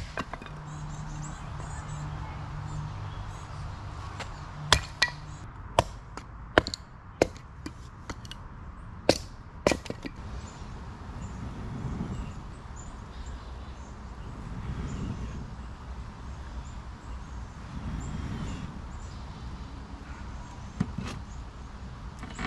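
Firewood being chopped: a run of about eight sharp chops, irregularly spaced about half a second to a second apart, between about 5 and 10 seconds in. The wood is damp campground firewood.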